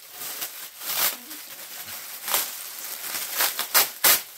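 Plastic mailer bag crinkling and rustling as it is handled and opened, with sharp crackles about two seconds in and three loud ones near the end.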